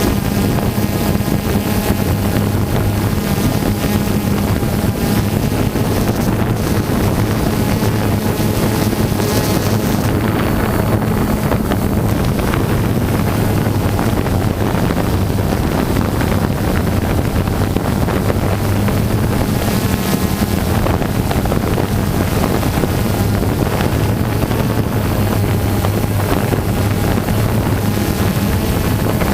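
Motors and propellers of a camera drone running steadily, a constant buzzing hum, with wind buffeting the microphone.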